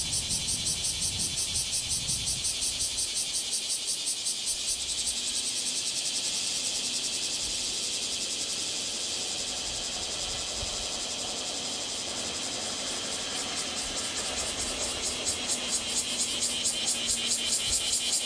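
A chorus of cicadas. It pulses at about three to four beats a second, merges into a steady shrill drone in the middle, and pulses again near the end.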